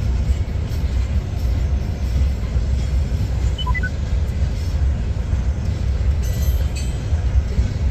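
Freight train hopper cars rolling past, a steady heavy low rumble of wheels on rail. About halfway through comes a short falling run of four high tones.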